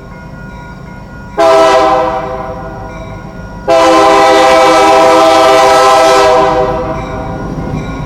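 Diesel locomotive air horn blowing a chord. It sounds softly at first, then a short loud blast comes about a second and a half in and tails off, followed by a long loud blast held from about four to six and a half seconds, over the low rumble of the train.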